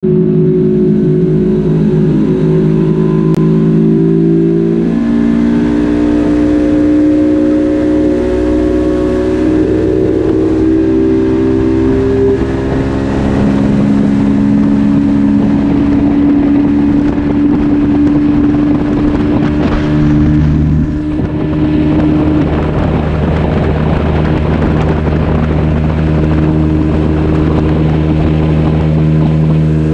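Outboard motor of a flats skiff running at speed, with a steady rush of wind and water beneath its tone, which shifts pitch several times.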